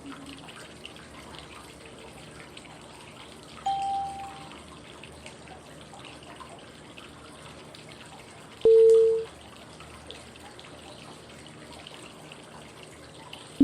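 Steady flowing-water white noise. Over it, two short single-pitch cue tones pace the 5-second phases of 555 breathing (inhale, hold, exhale): a softer, higher tone about 4 seconds in and a louder, lower one about 9 seconds in.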